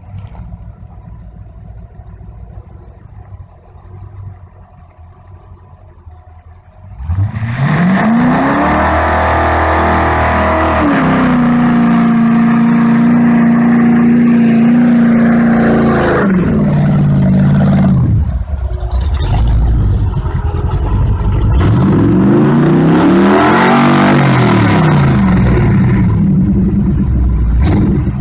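Chevrolet 396 big-block V8 in a 1964 Chevy pickup doing a burnout. It runs low at first, then after about seven seconds it revs up hard and is held at high revs with the rear tyre spinning. The revs drop, then rise and fall once more near the end.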